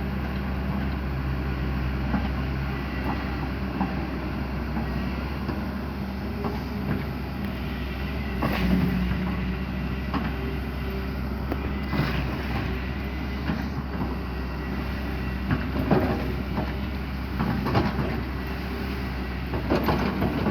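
Hyundai excavator's diesel engine running steadily under load, with occasional sharp knocks and clanks, the loudest about 8 and 16 seconds in.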